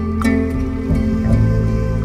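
Soft instrumental background music of held notes, with the pitch moving to a new chord about a second in.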